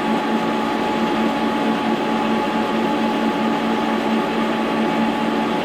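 Horizontal milling machine running at a steady speed, a constant hum with a steady whine over it.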